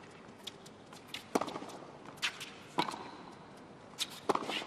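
Tennis balls struck by rackets in a baseline rally: sharp pops roughly every second and a half, with fainter knocks in between.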